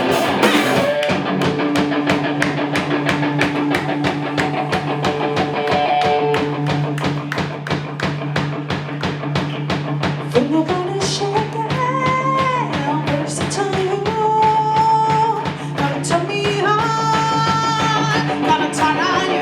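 Rock band playing, with electric guitar, a driving drum beat and a held low bass note. About ten seconds in, a lead line (singing or guitar) slides up in pitch and carries on with held, bending notes.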